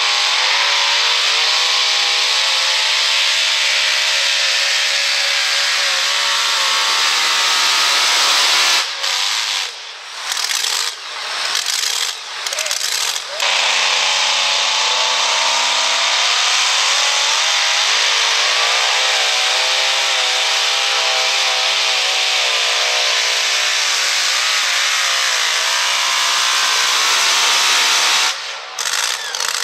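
Supercharged engines of super modified two-wheel-drive pulling trucks running at full throttle under load as they drag the weight sled. The first run cuts off about nine seconds in. After a few seconds of broken, quieter engine sound, the next truck runs at full throttle until its engine drops away near the end.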